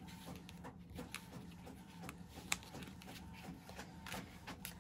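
Faint rustling and a few soft ticks as string is wrapped around a paper button closure on a cardstock folio.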